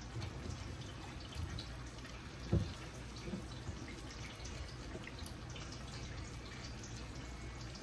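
Small wet splashes and drips of liquid as a hand works pieces of food in a bowl, with one soft knock about two and a half seconds in, over a low steady hum.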